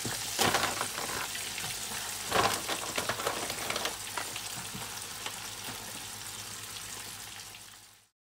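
Gyoza dumplings frying in a pot of hot oil: a steady crackling sizzle. It surges louder twice, about half a second and two and a half seconds in, as dumplings are dropped into the oil, then fades out near the end.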